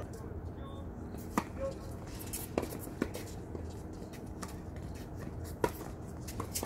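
Tennis ball being hit back and forth with rackets in a doubles rally on a hard court: a handful of sharp pops, two of them less than half a second apart, over a steady low hum.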